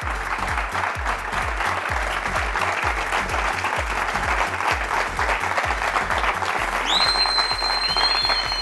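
Studio audience applauding over music with a bass beat about twice a second. A high steady tone comes in about seven seconds in and holds.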